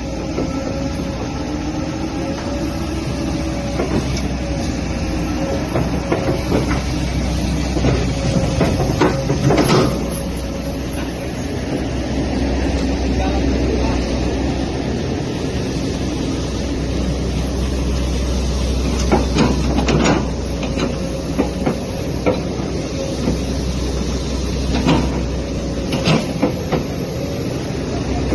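Excavator-mounted forestry mulcher running steadily with a constant engine and rotor drone, broken at intervals by sharp cracks and knocks as the mulcher head shreds palm tree wood.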